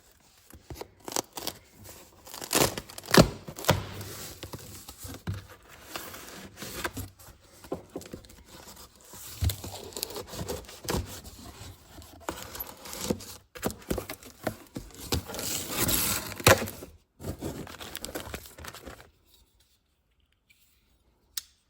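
A cardboard shipping box and its packaging being opened by hand: tearing, crinkling and scraping with irregular clicks and knocks. It stops about 19 seconds in.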